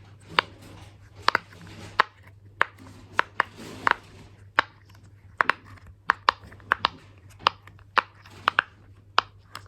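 Sharp, uneven clicks and snaps, about two a second, from a glitter fidget popper toy being worked open out of its plastic packaging by hand.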